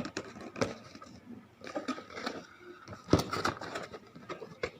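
Close handling noise while unboxing a fishing reel: scattered clicks and knocks with scraping between them, the sharpest click about three seconds in.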